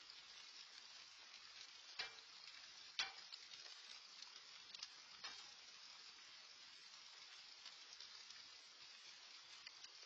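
Light rain pattering, a faint steady hiss full of small drip ticks, with two sharper taps about two and three seconds in.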